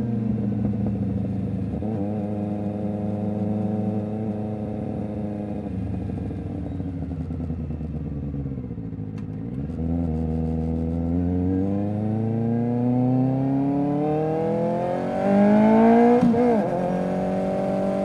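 Kawasaki Ninja ZX-4RR's inline-four engine through an SC Project exhaust, its note falling as the bike slows until about halfway, then rising steadily as it accelerates, getting louder. Near the end there is a brief break and drop in pitch, a quick gear change.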